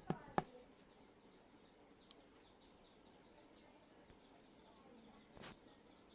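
Two sharp clicks right at the start, then faint birds chirping over and over in the background, with a brief soft burst of noise about five seconds in.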